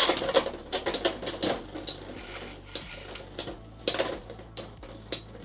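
Two Beyblade X tops, a Shark Edge 3-60 XL attack combo against Night Shield 9-60 Gear Needle, spinning and colliding in a plastic stadium just after launch. A rapid run of sharp plastic clacks, dense at first and thinning out, with a few louder hits about four seconds in and again near the end.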